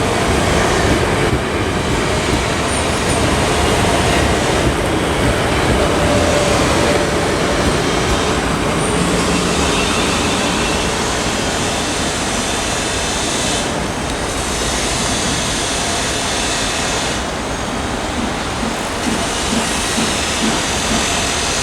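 A pair of South Western Railway Class 450 Desiro electric multiple units moving through the station, the train's wheels and running gear sounding steadily on the rails.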